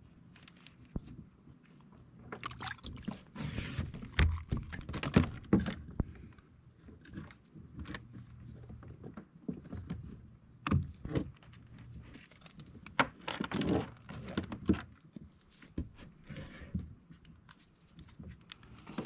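Irregular water splashes with knocks and rattles on a fishing kayak as a hooked fish is brought up to the boat.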